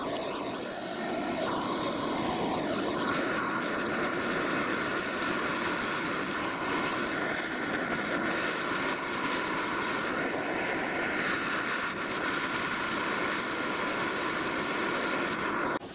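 Gas blowtorch flame burning with a steady roar as it heats a small bronze globe valve body to silver-solder a threaded sleeve onto it; it cuts off suddenly near the end.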